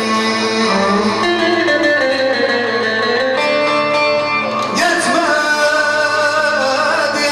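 Live amplified music: a man singing into a microphone over instrumental accompaniment, with a new phrase coming in about five seconds in.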